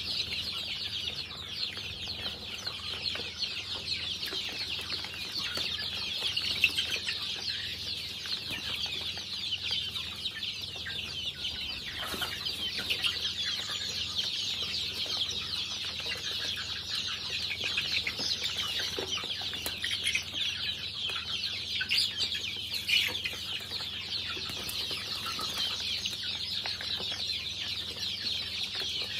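A flock of young chickens peeping as they feed: a dense, continuous chorus of many overlapping high chirps, with a few brief sharp knocks.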